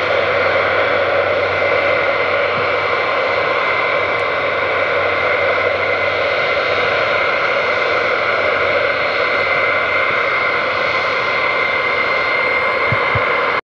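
Boeing 707's engines running steadily as the jet rolls along the runway after landing: a dense jet noise with a high whine held over a low hum, cutting off suddenly at the end.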